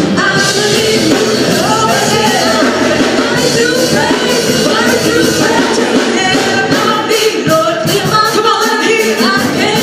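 Worship song at a church service: voices singing a melody over electronic keyboard accompaniment, steady and loud throughout.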